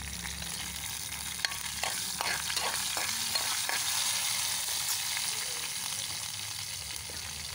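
Curry leaves and whole spices (mustard seeds, cumin, pepper) sizzling in hot oil in a kadai, a steady hiss of frying. A run of short clicks and crackles comes between about one and a half and four seconds in.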